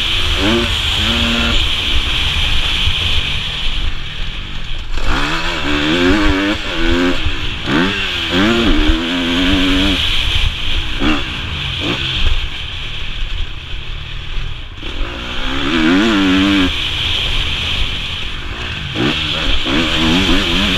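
Motocross bike engine revving up and falling back again and again as the rider accelerates and backs off along the dirt track, heard from the rider's helmet. A steady low wind rumble on the microphone runs under it.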